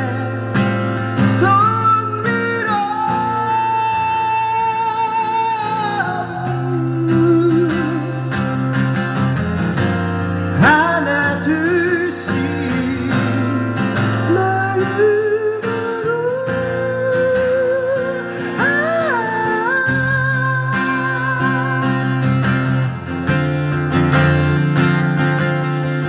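A man singing a slow song to his own strummed acoustic guitar. He holds long notes with a wavering vibrato over the steady chords.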